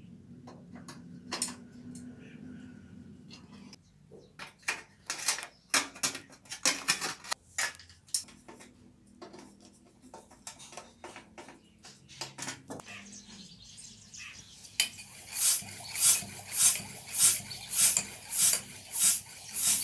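Metal clicks and scrapes of hand tools working on a bicycle, then near the end a hand floor pump inflating a bicycle tyre: loud hissing strokes, about two a second.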